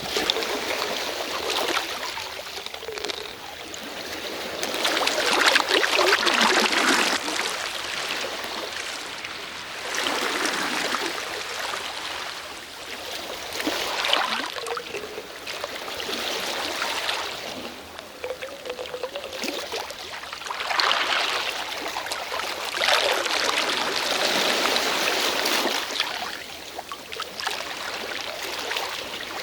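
Sea waves washing in and draining back, the surf swelling and fading every few seconds.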